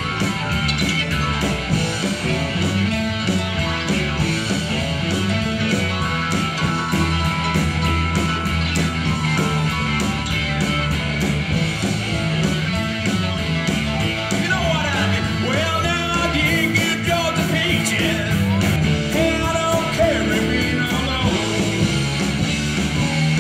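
A live rock band playing: electric guitars, bass guitar and a drum kit with a steady beat. High sliding notes stand out in the second half.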